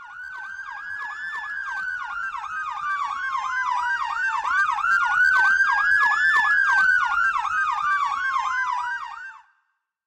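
Fire engine sirens sounding together: a slow wail that climbs for about a second and a half and then sinks over about three seconds, twice, over a fast yelp sweeping up and down about three times a second. The sound cuts off near the end.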